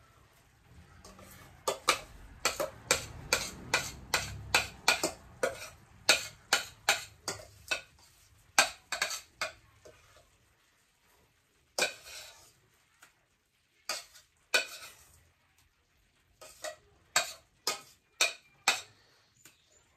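Metal spoon clinking and scraping against a stainless steel pot while scooping mashed potatoes out and dropping them in spoonfuls onto a skillet. The clinks come quickly, about two a second, through the first half, then thin out to scattered taps.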